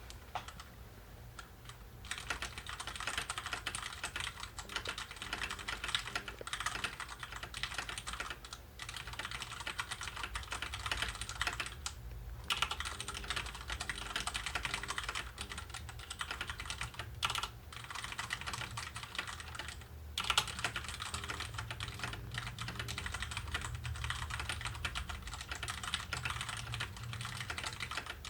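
Fast continuous typing on a Max Keyboard Nighthawk X8 mechanical keyboard, a dense run of key clicks with a few brief pauses. A low hum runs underneath.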